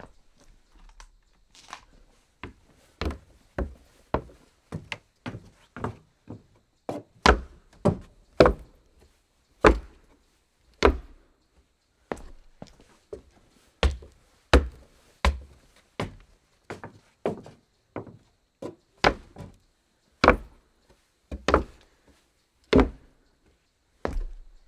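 Footsteps walking on a wooden floor: a long run of separate knocks and thuds at roughly one to two a second, uneven in spacing, some steps much louder than others.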